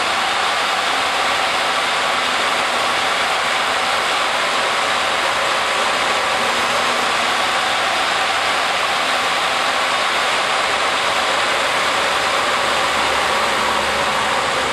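Salvaged treadmill DC motor with a flywheel, driven by an MC60 controller, running steadily at high speed: a loud, even whir with a faint steady tone.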